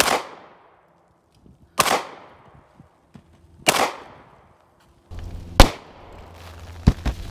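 Handgun shots fired one at a time, about two seconds apart: four loud reports, each with a short echo dying away, then a quieter crack about seven seconds in.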